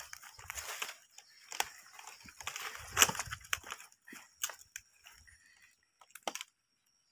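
Feathers being pulled by hand from a chicken lying on a dry palm frond: irregular tearing and rustling, with crackles from the stiff leaf, one sharp crackle about three seconds in, thinning out near the end.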